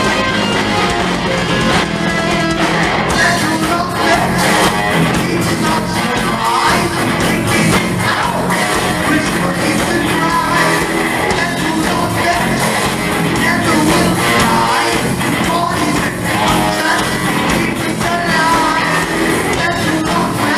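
Heavy metal band playing live: electric guitar, bass guitar and drums, with a man singing lead vocals over them.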